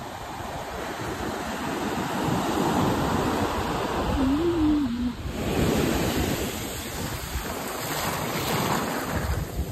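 Ocean surf washing ashore, swelling and fading in surges, with wind buffeting the microphone.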